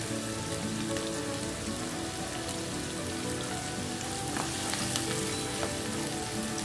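Chopped red onions frying in vegetable oil in a nonstick wok: a steady sizzle with fine crackles as the raw onions begin to soften.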